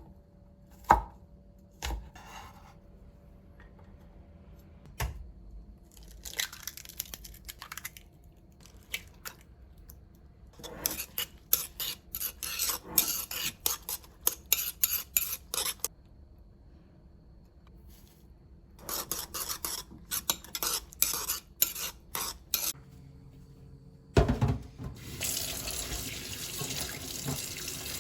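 Dishes and utensils clattering at a sink in short bursts, then a water tap turned on and running steadily near the end.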